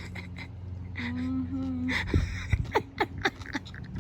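A woman's drawn-out appreciative 'mmm' about a second in, followed by a run of quick small clicks and smacks, over a steady low hum.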